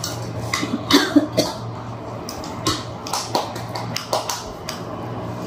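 Mealtime clicks and taps: hands and a utensil working food on a plate, a string of sharp irregular clicks, loudest about a second in, over a steady low hum.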